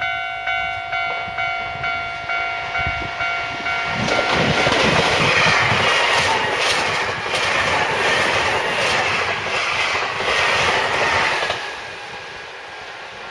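Japanese level-crossing warning bell dinging about twice a second, then a Nankai Main Line electric train runs over the crossing from about four seconds in, its wheels clattering over the rail joints for some seven seconds before the noise drops away suddenly.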